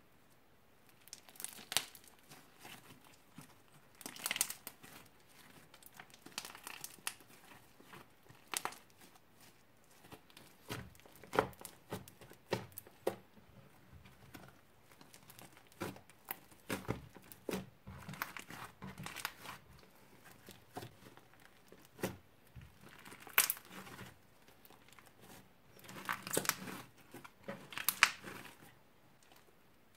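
Hands kneading, pressing and stretching thick slime mixed with small beads, giving irregular sticky crackles and pops in clusters, with a few louder bursts of crackling near the end.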